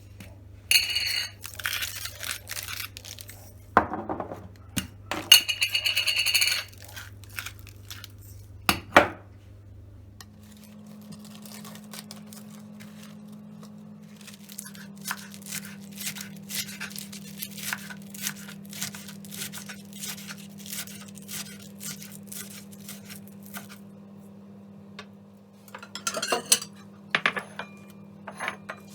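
Kitchen handling sounds: dishes and utensils clinking, with a run of light taps in the middle, over a steady low hum.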